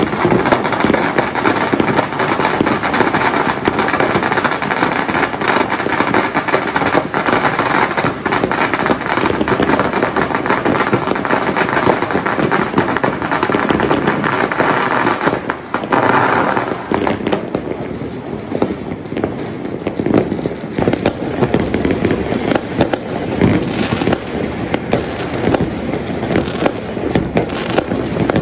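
Firecrackers and fireworks going off in a dense, unbroken crackle of bangs. About sixteen seconds in, the crackle thins to sparser, more separate bangs.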